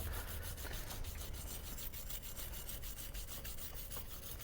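Cloth rubbing quickly over a freshly soldered copper pipe joint in short scratchy strokes, several a second, wiping off excess solder and flux. A steady low hum runs underneath.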